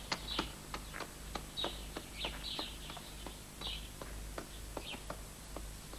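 Hooves clip-clopping at a walk on hard ground, a knock about every third of a second, with small birds chirping in short bursts over them.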